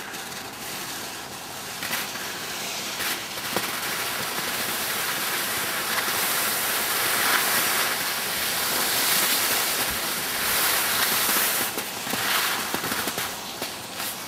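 Skis hissing and scraping over snow during a downhill run, with wind rushing over the microphone: a steady noise that swells in the middle and eases near the end.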